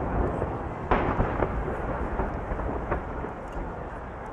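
Aerial firework shells bursting in a dense display: a loud boom about a second in, a few smaller bangs right after it and another near three seconds, over a continuous low rumble of bursts that fades toward the end.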